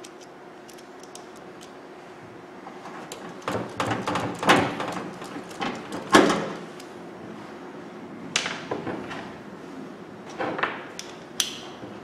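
Clicks and knocks from a screwdriver and screws against a microwave oven's metal cabinet as its back cover is screwed back on. The loudest knocks come around four and six seconds in, with a short metallic ring near the end.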